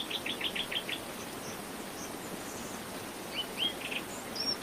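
A bird chirping: a quick run of about six short, high chirps at the start, then a few more about three and a half seconds in, over a steady background hiss.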